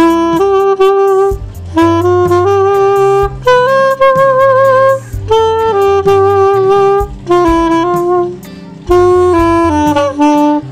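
Yamaha Venova, a small plastic single-reed wind instrument, playing a song melody in short phrases separated by brief breaths. A held note about four seconds in wavers in pitch.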